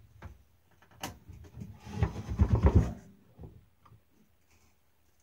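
Handling noise of a heavy replica championship belt being moved and lifted onto the shoulder: a sharp knock about a second in, then about a second of louder rubbing and rustling with low thumps, and a few small knocks after.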